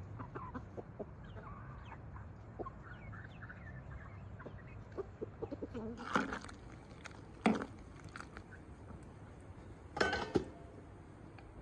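Hens and a rooster clucking and chirping softly while they peck and feed, with a few louder sudden sounds near the middle and toward the end.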